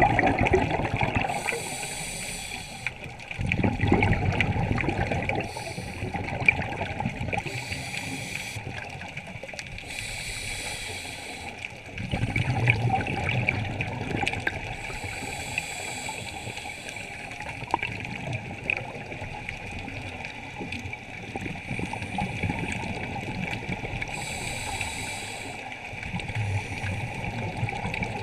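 Scuba diver breathing underwater through a regulator. Hissing inhalations alternate with louder bursts of bubbling, gurgling exhaled air, several breaths in a row.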